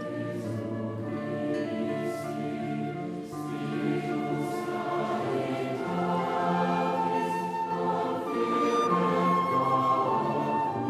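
Sacred choral music: a choir singing slow, sustained chords with instrumental accompaniment.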